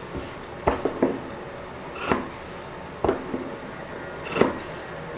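Scissors snipping through fabric, trimming the corners of a stitched fabric face mask: about five sharp snips at uneven intervals, the loudest near the end.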